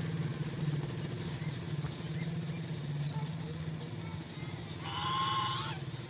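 An engine running steadily with a low hum. About five seconds in, a short higher-pitched call sounds over it.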